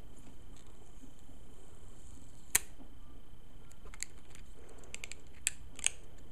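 Clear plastic packaging tray being handled and pried at by hand: scattered sharp plastic clicks and crinkles, the loudest about two and a half seconds in and a couple more near the end.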